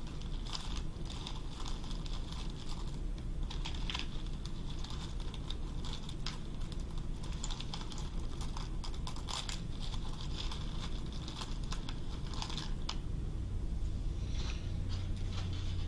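Buttons clicking and clattering against each other as fingers rummage through a plastic tub full of them, a rapid irregular run of small clicks that thins out near the end.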